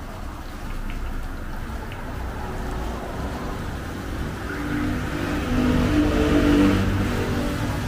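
A steady low rumble of traffic, with a wok of deep-frying banana fritters sizzling in oil. About five seconds in, a vehicle engine grows louder, then eases off near the end.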